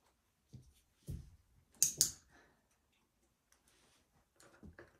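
A dog-training clicker sounding a sharp double click (press and release) about two seconds in, marking the puppy's wanted behaviour. A soft thump comes just before it, with faint rustling of the dog moving on the cushion.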